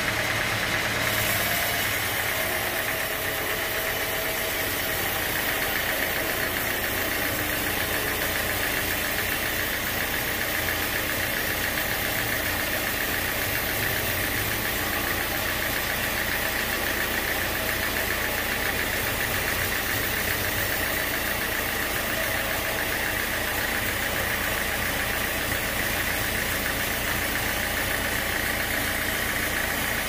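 Band sawmill running steadily as its blade cuts lengthwise through a large teak log: an even mechanical drone with a steady high whine.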